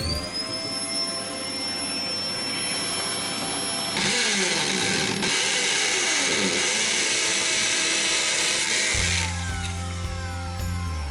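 An electric drill spins up to a steady high whine, then bores into a brick wall with a louder gritty noise for about five seconds before stopping and winding down. A vacuum cleaner is held at the hole to suck up the dust. Background music plays faintly underneath.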